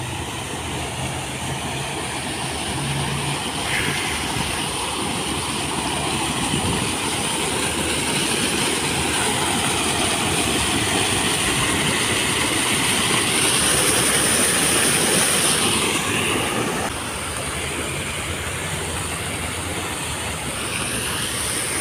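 Fountain jets splashing down into a pond, making a steady rushing hiss of falling water. It swells gradually and drops a little about three-quarters of the way through.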